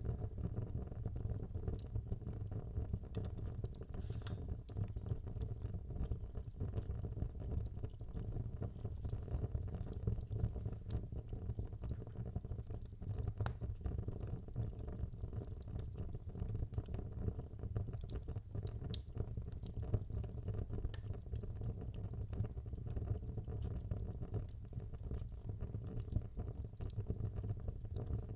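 Wood fire burning in a fireplace: a steady low rumble of flames with frequent small irregular crackles and pops from the logs.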